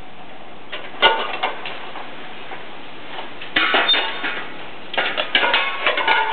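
Metal clanking and clinking as stacked metal wheel rims are handled and shifted: one clank about a second in, a cluster a little past halfway, and a busier run of clanks near the end, each with a short metallic ring.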